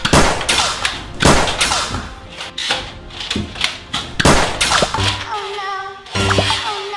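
A run of loud, sharp gunshot-like bangs from a Nerf blaster battle, coming irregularly every half second to a second. Background music comes in near the end.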